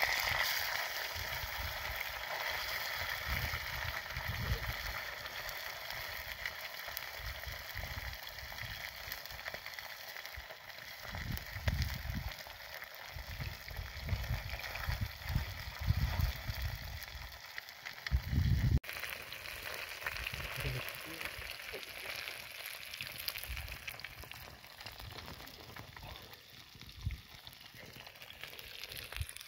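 Trout sizzling as it fries in oil in a pan over a Swedish torch log stove: a steady frying hiss, loudest just as the fish goes into the hot pan and easing off later. Irregular low rumbles come and go in the middle stretch.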